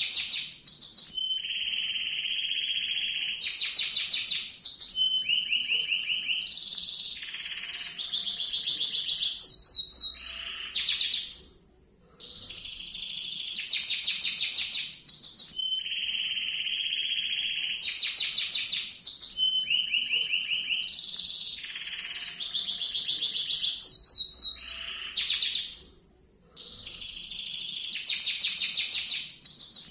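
Domestic canary singing a long rolling song, fast trills and rolls strung together almost without a break, pausing briefly twice, about eleven and twenty-six seconds in.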